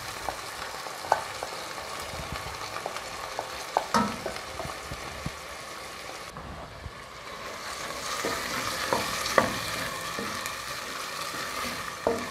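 Chicken pieces sizzling in oil with onion, garlic and leek in a stainless steel pot, with scrapes and sharp knocks from a cooking utensil against the pot as it is stirred. The sizzle grows stronger about two-thirds of the way through.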